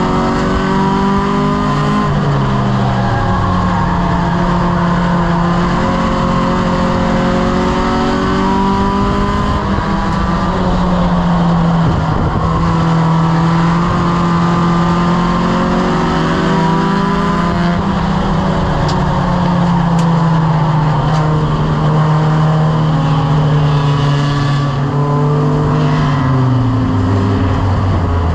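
A Strictly Stock Mini race car's four-cylinder engine heard from inside the cockpit, running at steady part throttle at caution pace, its pitch drifting slowly up and down. The revs drop near the end as the field lines up for the restart.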